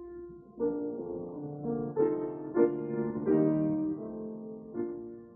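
Keyboard music: a slow series of struck, sustained chords, each ringing on and fading before the next.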